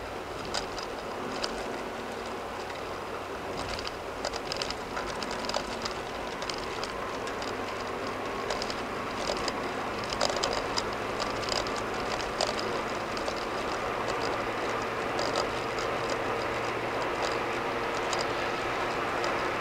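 Car interior road noise: tyres rolling on concrete pavement with a steady low engine hum, growing slightly louder as the car speeds up, with irregular light ticks throughout.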